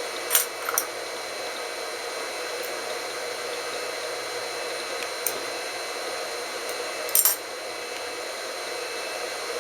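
Steady whirring hiss of a sewing machine's motor running, with a few short clicks and rattles about half a second in, once near the middle and a louder cluster about seven seconds in.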